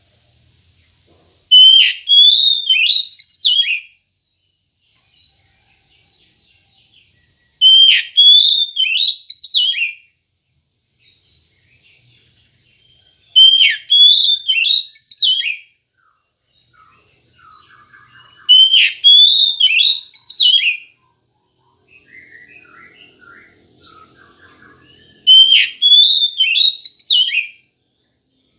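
Oriental magpie-robin (kacer) singing: the same loud phrase of sharp, rising whistled notes repeats five times, about every six seconds, with faint softer twittering between the phrases.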